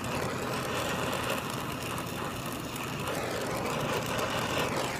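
Oxy-acetylene brazing torch flame hissing steadily as it heats a copper line-set joint on a filter drier.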